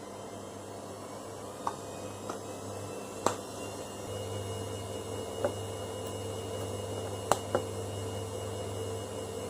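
Steady low machine hum that steps up a little about four seconds in, with half a dozen short sharp clicks or taps scattered over it, two of them close together near the end.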